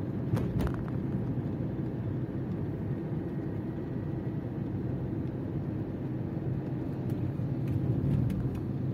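Steady low rumble of a car's engine and tyres heard from inside the cabin while driving slowly in city traffic. A couple of sharp clicks come about half a second in, and a few fainter ones near the end.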